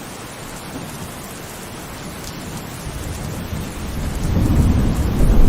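Steady heavy rain, with a low rumble of thunder building from about halfway through and growing loud near the end.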